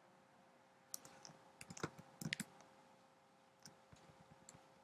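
Faint clicks and taps of someone operating a computer, a quick cluster of them between about one and two and a half seconds in, then a few scattered ones near the end, over a faint steady hum.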